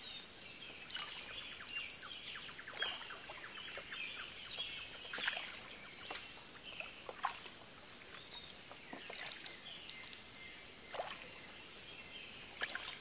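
Water lapping and splashing softly against a small boat's hull as it drifts on calm sea, in irregular small splashes every second or two. Birds chirp now and then, over a steady high-pitched hiss.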